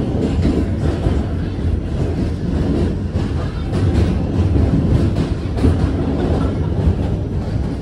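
R46 subway train running over the Manhattan Bridge's steel structure: a loud, steady rumble of wheels on rail, with scattered sharp clicks from the track.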